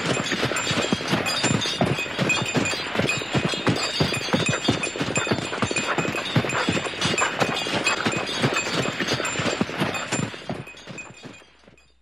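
Horse pulling a sleigh: hooves clip-clopping in a quick, steady rhythm, fading out near the end.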